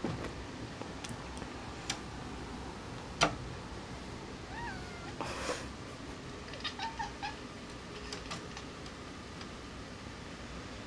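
Young cat chirping at a fly, the hunting call the uploader calls barking: two short bending chirps about four and a half seconds in, then a quick run of four or five clipped chirps about seven seconds in. A few sharp taps come earlier, the loudest about three seconds in.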